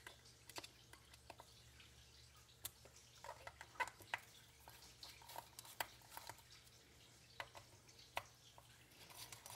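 Faint, scattered small clicks and light metallic ticks of a hex driver and small screws as the four screws holding a stock ESC cooling fan are backed out and handled, over a low steady hum.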